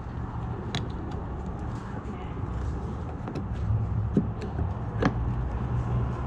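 Plastic rear side marker lens being handled and pressed into the quarter panel of a fourth-generation Firebird, giving a few sharp plastic clicks. The clearest click comes about five seconds in, as the lens snaps into place. A steady low hum runs underneath.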